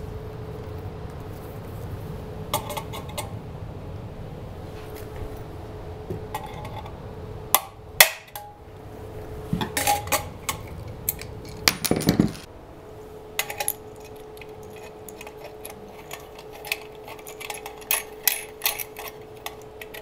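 Hand-tool work on a steel 4-square electrical box: a few sharp metal knocks around 8 and 12 seconds in as a knockout is opened and broken out with hammer, screwdriver and pliers, then a run of small metal clicks and clinks as a conduit fitting is pushed into the opening. A faint steady hum lies underneath.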